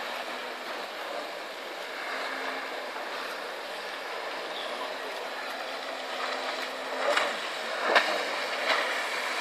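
Jet ski engine running at speed across open water, under a steady wash of wind and sea noise with a faint engine hum. It gets louder near the end, with a few sharp bursts of noise as the craft comes close.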